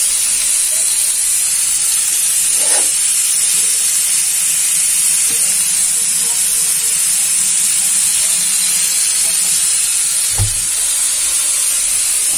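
Marinated chicken pieces sizzling steadily in a dry nonstick frying pan with no oil, over a gas flame set to medium-low. A single soft knock about ten seconds in.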